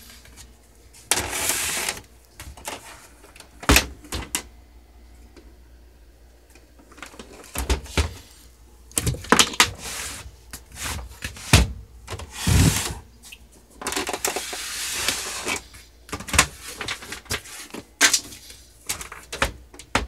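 The plastic housing of a Smith Corona PWP 3 portable word processor being shifted, lifted and turned by hand: irregular knocks and sharp clicks, with several longer rubbing swishes.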